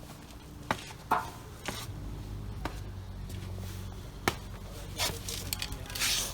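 Sharp knocks and clinks of small steel plates and brackets being handled and set down on a workbench, about six of them spread irregularly. A low steady hum comes in about two seconds in.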